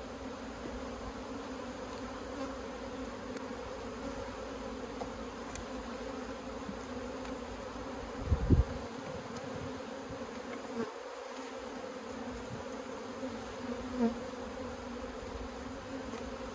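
Honeybee colony buzzing from the open hive, a steady hum of many wingbeats. A brief dull low thump about halfway through.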